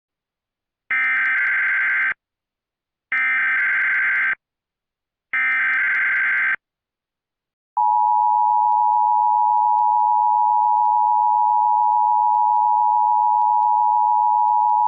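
Emergency Alert System header tones: three short bursts of screechy digital data about a second apart. About eight seconds in, the steady two-tone EAS attention signal begins and holds, announcing an emergency alert.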